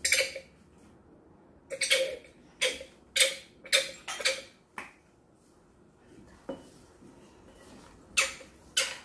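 Small spoon clinking and tapping against a glass jar in sharp, irregular strikes: a run of about six taps roughly half a second apart around the middle, then two close together near the end.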